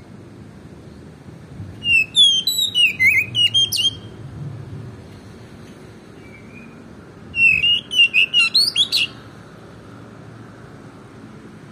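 Oriental magpie-robin singing in full song: two bursts of rapid, varied whistled and chirping notes, the first about two seconds in and the second about seven seconds in, each lasting about two seconds.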